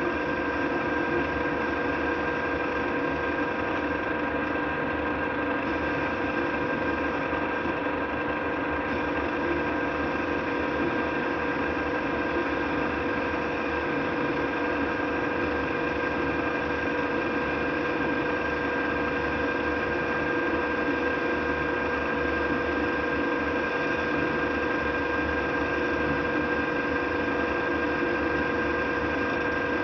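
Metal lathe running steadily while taper turning, a constant whine of several steady tones over a mechanical rumble.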